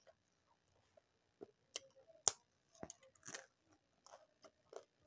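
Close-up mouth sounds of chewing food: a string of short wet smacks and clicks, with one sharper smack a little past two seconds in.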